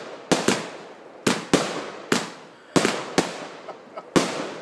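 Maximum Showtime multi-shot firework cake firing: a string of about nine sharp bangs at uneven intervals, each trailing off quickly.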